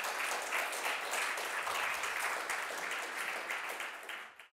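Audience applauding steadily, thinning out near the end and then cutting off abruptly.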